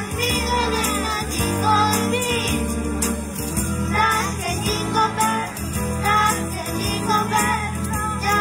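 Children's group singing a Spanish Christmas carol (villancico) into microphones over instrumental accompaniment, with jingling hand percussion from a tambourine and shakers.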